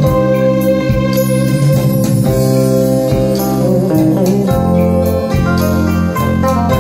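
Music with a steady bass beat and guitar, played through a pair of JBL TLX 16 three-way loudspeakers with 20 cm bass drivers and titanium tweeters.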